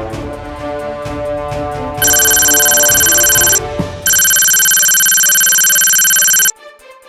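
Background music with a steady beat for about two seconds. Then a loud, steady electronic ringing tone sounds twice, about a second and a half and then two and a half seconds long, with a short gap between, and cuts off suddenly into quieter music.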